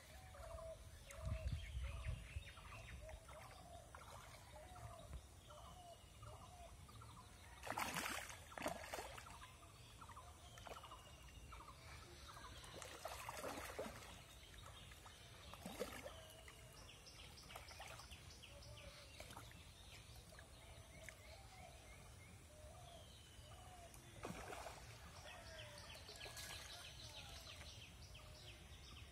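Faint outdoor ambience of birds calling over and over in short notes, with a few brief splashes as fish break the water's surface.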